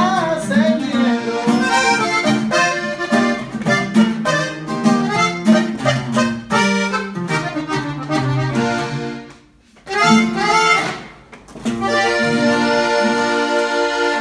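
Button accordion playing with an acoustic guitar, a man singing over them at first. The music breaks off briefly about nine and a half seconds in, then the accordion holds one long steady chord near the end.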